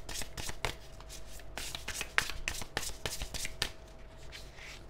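Tarot cards being shuffled by hand: a quick run of crisp card flicks that stops about three and a half seconds in, then a soft rustle of cards near the end.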